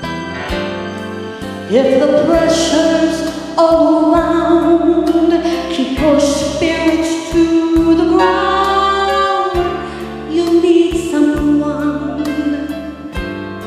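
A woman singing a slow gospel song into a microphone over instrumental accompaniment. Her voice comes in with an upward slide about two seconds in and then holds long notes with vibrato.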